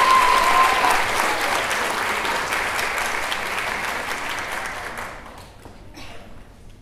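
Audience applause that fades steadily over about five seconds to a few scattered claps, with a held high tone in the first second.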